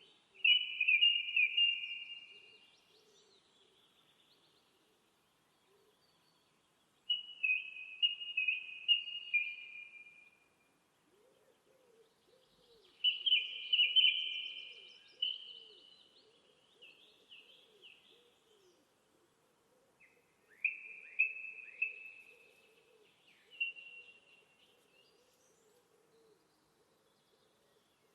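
A songbird singing four short, high trilled phrases a few seconds apart, with a faint lower warbling behind them from about halfway through.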